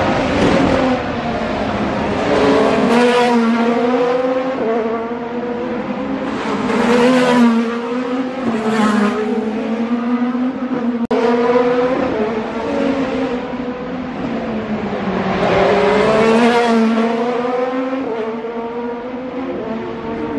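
Several IndyCar race cars with turbocharged V6 engines running past one after another, each engine note swelling and fading as the car goes by, its pitch rising and falling with the throttle and gear changes.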